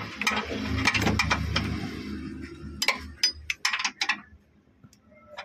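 Socket wrench and extension clicking and clinking on an engine-mounting bolt as it is tightened, over a low rumble in the first two seconds; a run of sharp metallic clinks about three seconds in.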